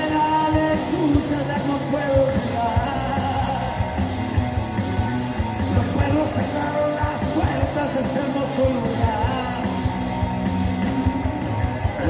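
Rock band playing a song: drums, electric guitars and bass guitar, with a man singing lead vocals.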